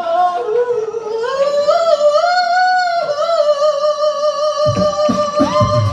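A cappella vocal group singing long held notes in close harmony with no instruments, the voices sliding upward early on and then holding a steady chord. Near the end low vocal-percussion beats come in under the chord.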